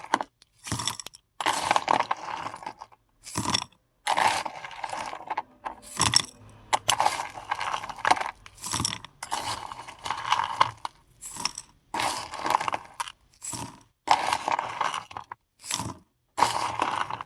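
Paradichlorobenzene mothball tablets clattering and rattling as they are poured in, in about fifteen short bursts with brief gaps between.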